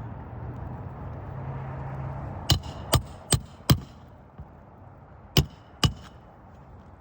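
Hammer driving the last roofing nail into a repaired shingle: four quick strikes about two and a half seconds in, then two more a little later.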